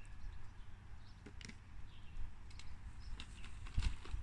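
A few faint clicks and taps over a low rumble, like wind on the microphone.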